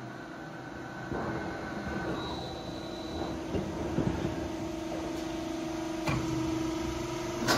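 Double-layer roll forming machine running, feeding a corrugated steel roofing sheet through its lower deck of forming rollers: a steady motor hum with a few light knocks.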